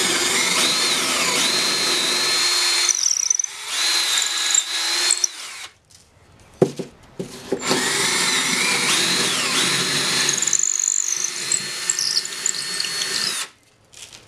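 Power drill with a long twist bit boring through holes in cedar blocks: the motor whines at speed while the bit cuts through the wood, its pitch sliding up and down under load. It runs in two long stretches with a shorter one between, pauses about halfway with a few knocks, and stops near the end.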